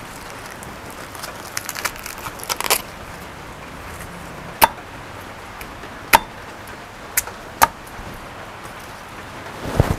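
Fresh corn husks rustling and tearing as they are peeled off the ear, then a cleaver chopping through vegetables on a wooden chopping board: four sharp single chops a second or so apart.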